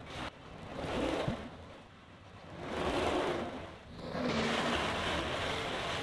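Compact track loader's diesel engine revving up and down in swells as it works the bucket through sawdust, then running steadily under load from about four seconds in.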